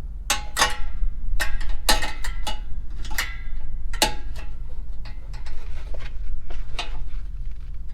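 Metal clinking and ringing from exhaust springs and a spring-puller tool as a spring is stretched and hooked between the catalytic converter and the exhaust pipe: a quick run of sharp clinks in the first half, lighter ones later, over a steady low hum.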